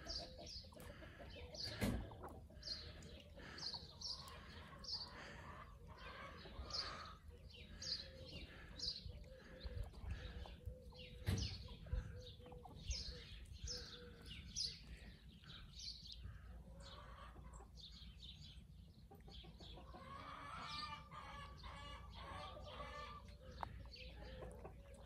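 Bresse Gauloise chickens clucking, faintly, in a steady run of short high calls about one or two a second, with a longer drawn-out call a few seconds before the end.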